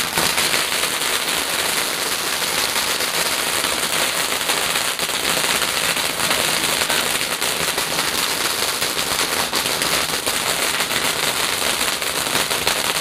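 A garden firework crackling and hissing steadily, a dense fizz of fine crackles with no separate bangs.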